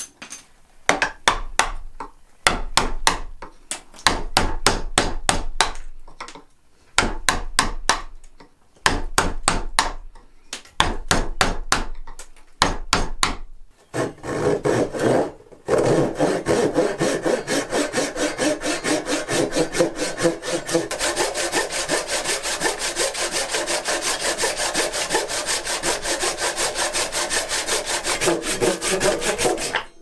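Mallet driving a carving gouge into maple: bunches of quick, sharp taps with short pauses between them. About fourteen seconds in, this gives way to a wood rasp filing the carved maple hand in fast, even strokes.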